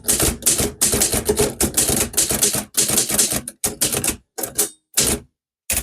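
Manual typewriter being typed on: a quick run of key strikes clacking for a few seconds, then slowing to a few separate strikes.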